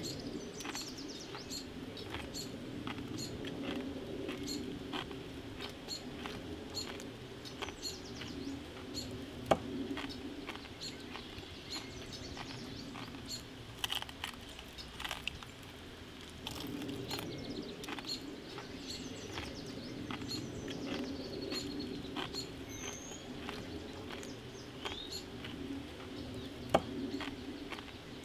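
Birds chirping now and then over a steady low background noise, with scattered sharp crackles and clicks and a few louder single snaps.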